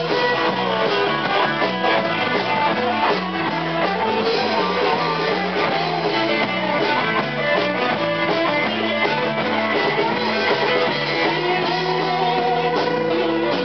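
Live rock band playing: electric guitar and bass guitar over a drum kit, steady and loud throughout.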